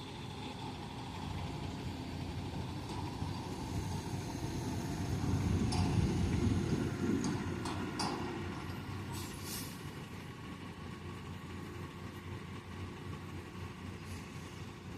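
A heavy vehicle's engine rumbling, growing louder to a peak about six seconds in and then fading, as it passes by. A few short rattles or clanks come near the middle.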